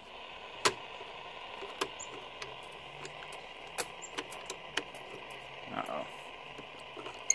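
Vintage Zenith Trans-Oceanic 3000 tube-era portable radio on the AM band, giving steady static hiss with sharp crackles every second or so and no station coming through.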